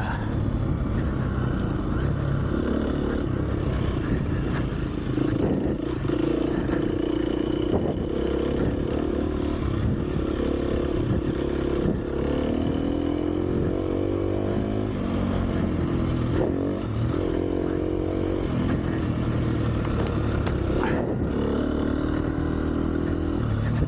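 Dirt bike engine under way off-road, its revs rising and falling as the throttle is opened and closed, with a few sharp knocks along the way.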